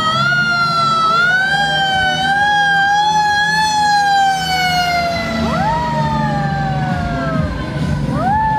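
Fire truck siren wailing, its pitch slowly rising and falling, with a second wail overlapping and sweeping up sharply about five seconds in and again near the end. A low engine rumble runs underneath.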